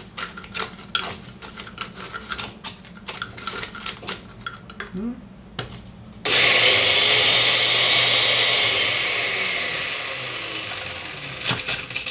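Ice cubes clattering and knocking inside a blender jar. About six seconds in, a countertop blender starts suddenly and runs for about five seconds crushing the ice, easing off slightly before it stops. There are a few knocks near the end as the jar is taken off the base.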